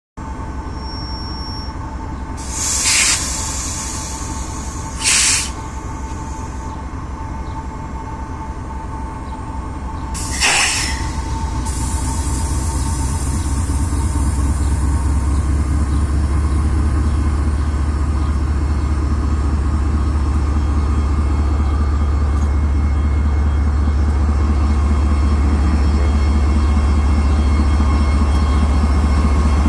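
TEP33A diesel-electric locomotive's diesel engine running with a steady low drone, growing louder about halfway through. Three short bursts of air hiss cut in near the start and about ten seconds in.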